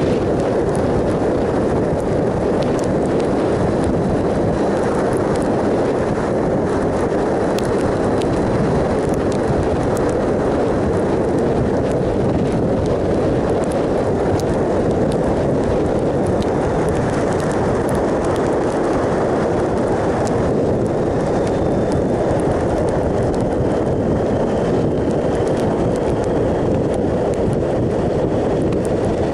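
Steady rush of wind and road noise from a 2007 Triumph Sprint ST 1050 cruising at a constant speed, with the bike's engine running under it and no change in speed.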